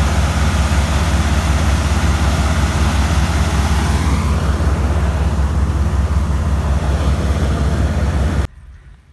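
Dalip combine harvester running, a loud steady engine and machine drone with a deep hum, while it unloads its grain tank into a trolley and then moves off. The sound cuts off suddenly near the end, leaving only faint outdoor quiet.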